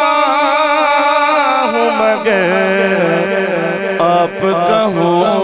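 A man singing a naat, unaccompanied, holding a long wavering melismatic vowel between lines of text, moving to a lower pitch about two seconds in.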